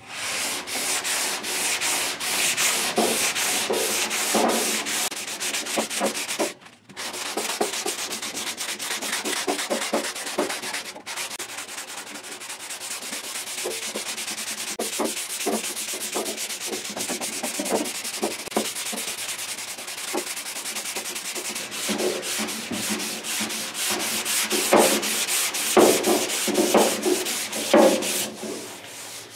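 Hand block-sanding of cured body filler on a steel fender patch: sandpaper on a sanding block rasping in rapid back-and-forth strokes, with a short pause about seven seconds in.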